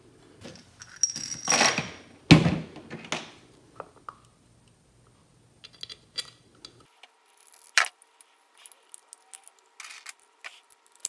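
Small steel screws clinking on the hard shop floor: a sharp metallic clink about two seconds in, then scattered light clicks as the screws are picked up one by one.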